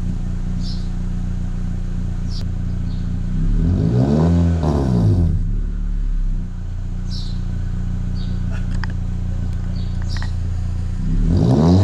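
2019 Honda Civic Sport's K20C2 2.0-litre four-cylinder idling through a catless RV6 downpipe. The engine is revved once about four seconds in, its pitch climbing and falling back to idle, and is revved again near the end.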